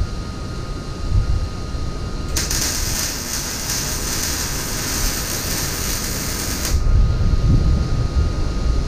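Welding arc on steel, one steady hissing, crackling bead of about four seconds that starts about two seconds in and cuts off sharply. A low rumble runs under it throughout.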